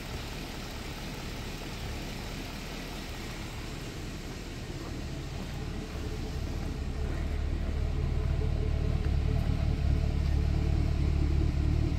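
A 2010 Chevrolet Camaro SS's 6.2-litre LS3 V8 idling steadily. The low exhaust rumble grows louder about halfway through as it is heard nearer the rear tailpipes.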